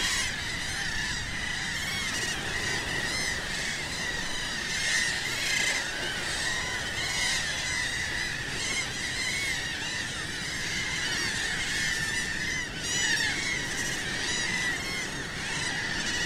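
A large flock of seabirds calling at once, many short overlapping honking calls without pause, with a steady rushing noise underneath.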